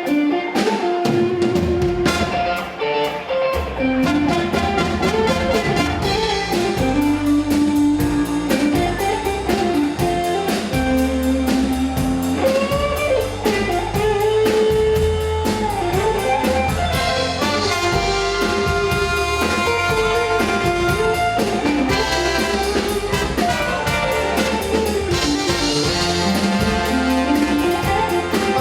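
Band playing an instrumental break of a soul song: a lead guitar solo with bent, gliding notes over a drum kit's steady beat and bass.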